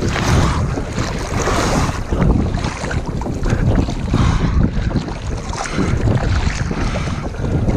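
Strong wind buffeting the microphone, with water rushing and splashing along a small sailboat's hull underneath in uneven surges.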